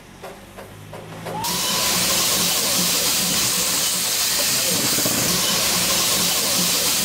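Darjeeling Himalayan Railway narrow-gauge steam locomotive: faint, even exhaust beats of about three a second, then about a second and a half in a loud, steady hiss of escaping steam cuts in suddenly and holds.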